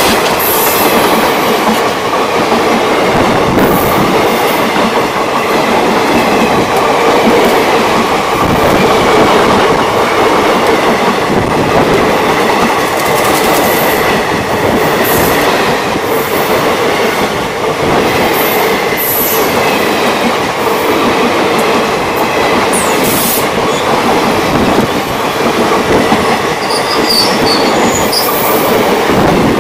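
Indian Railways passenger coaches passing close at speed: a steady loud rumble with wheels clattering over the rail joints, and brief high wheel squeals every few seconds.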